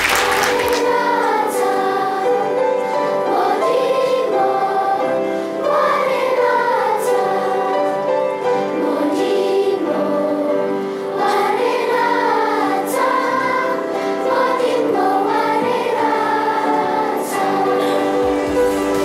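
A choir of schoolgirls singing a song together, with long held and gliding notes at a steady level.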